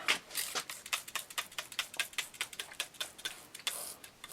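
Trigger spray bottle of soapy water pumped rapidly, short hissing squirts about five a second, sprayed on a tire bead to loosen it.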